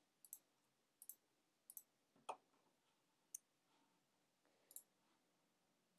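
Faint computer mouse clicks, about six at irregular intervals, with near silence between them.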